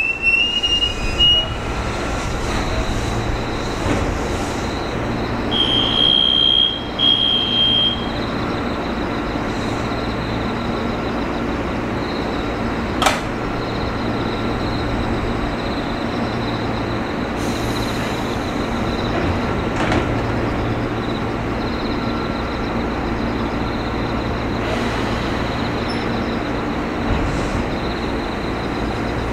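JR 205 series electric train drawing to a halt with a brief rising brake squeal, then standing with the steady hum of its electrical equipment. Two short electronic beeps sound about six seconds in, a sharp click comes near the middle, and brief hisses follow later.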